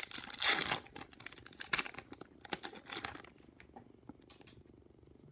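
A hockey card pack's wrapper being crinkled and torn open, loudest in the first second, followed by scattered small clicks and rustles of cards being handled that die away after about three seconds.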